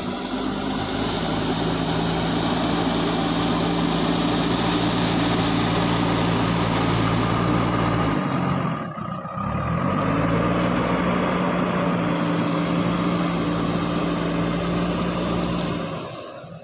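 JCB backhoe loader's diesel engine running steadily under load; about halfway through its pitch sags briefly and climbs back up, and it fades out near the end.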